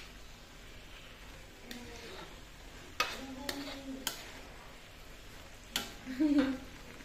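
Spatula scraping and knocking against a steel wok while stir-frying vegetables, with a few sharp strokes about three and four seconds in and again near six seconds, over a faint sizzle of frying.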